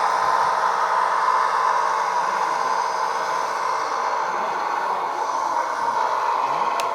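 1/14 scale RC hydraulic excavator running: a steady whine from its hydraulic pump mixed with the electronic sound module's simulated engine and swing sound, with a click near the end.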